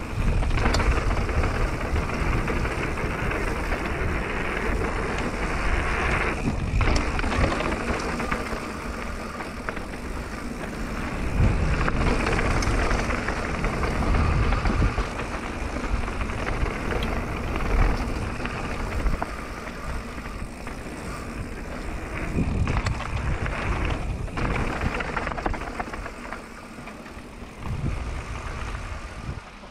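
Mountain bike rolling fast down a gravel and dirt trail: tyres crunching over loose stones, with rushing wind noise on the microphone that swells and eases with speed.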